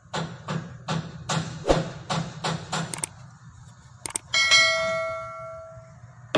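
A run of sharp percussive hits, about two or three a second, then a mouse-click and a bell ding, the sound effect of a subscribe-button animation; the ding rings out and fades over about a second and a half.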